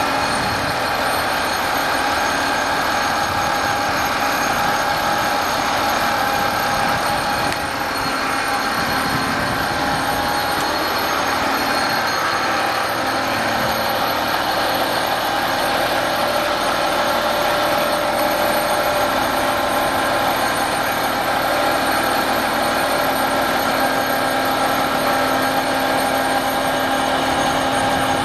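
Fire truck's aerial ladder extending under hydraulic power: the truck's engine and hydraulic pump run steadily, with several held tones over a mechanical hum.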